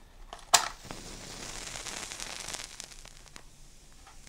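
Fire-crackle sound effect: a sharp crack about half a second in, then a crackling hiss that slowly fades away.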